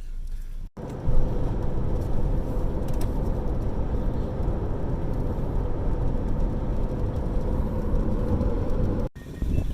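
Car driving, a steady rush of road and engine noise heard from inside the cabin. It starts abruptly about a second in and cuts off shortly before the end.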